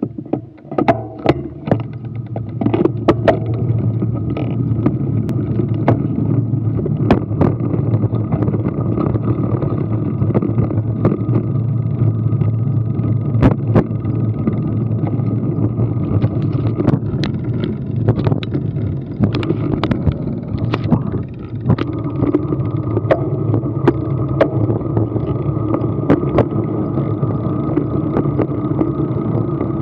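Road rumble and wind on a handlebar-mounted action camera riding slowly along pavement, rising in the first couple of seconds as the ride gets going. Many sharp knocks and rattles run through it, heaviest near the start and in the middle.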